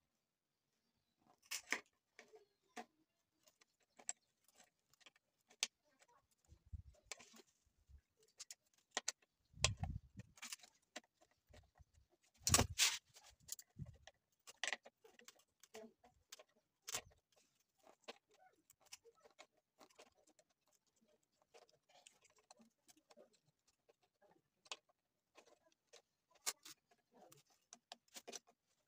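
Pliers clicking and scraping on the metal crimp tabs of a radiator's core header as they are bent back one by one to clamp a new plastic tank in place: irregular sharp clicks, with a few duller knocks near the middle.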